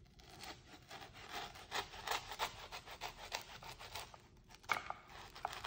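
Knife sawing down through a set slab of oranda gangjeong, puffed crisps bound in hardened malt-syrup candy, cutting slowly and gently. It gives a run of short rasping strokes, a few a second, with a brief lull a little past the middle.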